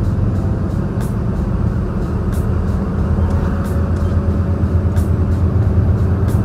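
Large truck's stock diesel engine pulling at full throttle up a steep winding climb, heard through a slightly open cab window as a steady low drone that grows a little louder midway.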